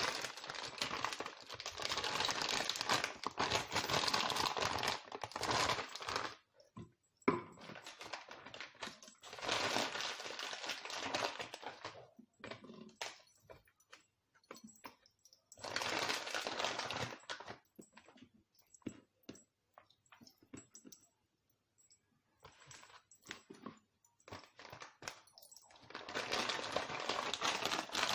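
Plastic food packaging crinkling and rustling in several bursts as it is handled and opened, with small clicks and knocks between.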